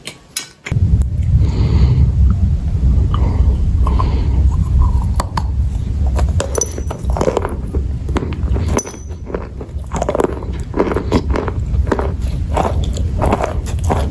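Close-miked biting and chewing of hard, crunchy chalky pieces. A heavy low rumble starts suddenly about a second in, and the sharp crunches come thicker near the end.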